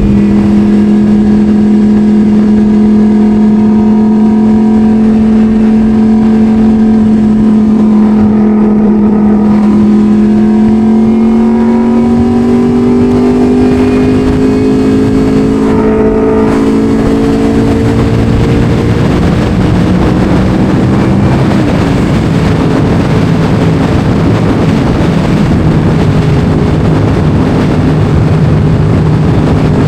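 Yamaha R1 sportbike's inline-four engine running under way, its note climbing slowly through the middle, then dropping about two-thirds of the way in and settling lower, with wind rush on the microphone heavier in the later part.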